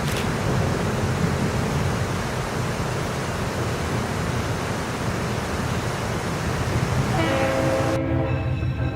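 A train running by with a steady rumble. Near the end a chord of several held tones comes in, and the background noise cuts away into music.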